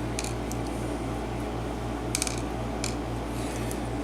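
Light metallic clicks and ticks, a handful scattered over a few seconds with a quick cluster about halfway, from small lock pins and a tool being handled while the key pins are taken out of a gutted pin-tumbler lock's plug. A steady low hum sits underneath.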